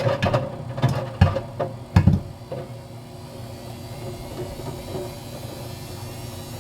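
GE LSGE09E09M washer-dryer running a gentle wool wash with a steady hum. In the first two seconds or so come several sharp knocks, as plastic vacuum cleaner parts tumble in the drum.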